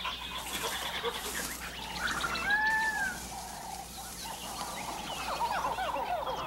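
Wild animal calls in tropical forest: a rapid high clicking trill, then a clear arched call rising and falling, and a flurry of short falling calls near the end.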